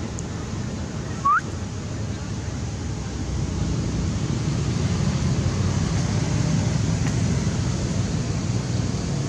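Steady low rumble of wind on the microphone, growing a little louder after about three seconds. About a second in comes a single short, sharp chirp that rises in pitch.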